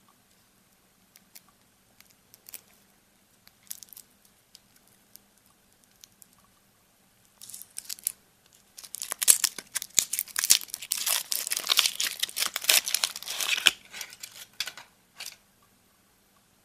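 Foil wrapper of a Kinder Surprise chocolate egg being peeled off by hand: a few faint crinkles at first, then several seconds of loud, dense crinkling and tearing of the foil that thins out near the end.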